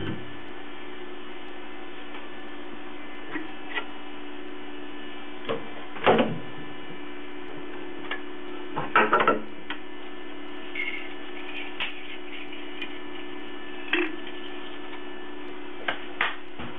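Steady electrical hum, its deeper part stopping right at the start, with scattered clicks and knocks as hands unclamp a carved model from a CNC mill's rotary axis, loudest about six and nine seconds in.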